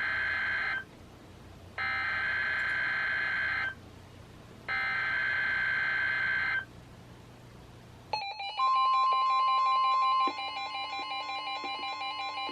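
Three SAME header bursts from NOAA Weather Radio, the harsh digital data screech that encodes a Severe Thunderstorm Watch alert, each about two seconds long with a second's pause between them. About eight seconds in, a steady alert tone starts, with several receivers' pulsing alarm beeps sounding together.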